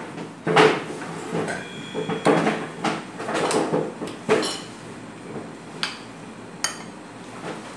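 Dishes and cutlery clinking and knocking on a table while people eat, a string of separate knocks about a second apart, one followed by a short metallic ring about four seconds in.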